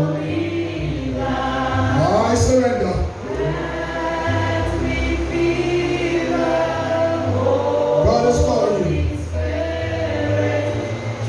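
Group of voices singing a slow gospel hymn, with long held notes over a steady low accompaniment.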